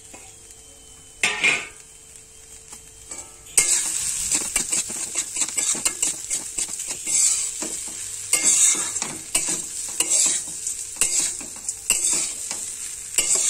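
Metal spatula stirring and scraping flattened rice in a metal kadai over a frying sizzle. There is one scrape about a second in, then from about three and a half seconds repeated scrapes and clicks of the spatula against the pan.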